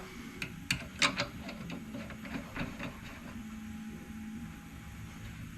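A quick series of light clicks and taps, about a dozen in the first three seconds, over a steady low hum.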